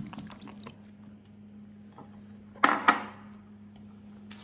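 Chunks of goat meat and pomo (cow skin) tipped from a bowl into an empty non-stick pot: a patter of small clicks as they land, then two louder clattering knocks about three seconds in.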